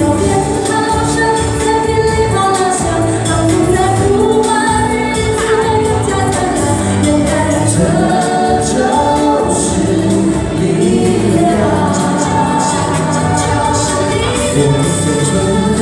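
A woman and two men singing a Chinese-language pop song live into handheld microphones over musical accompaniment, amplified through the PA system.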